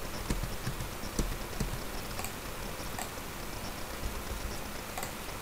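Scattered, irregular clicks of a computer mouse and keyboard over a steady hiss, with a few dull low thumps in the first two seconds.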